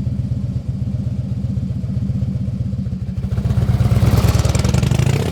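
Motorcycle engine running with a steady pulsing beat, growing louder and harsher about three and a half seconds in.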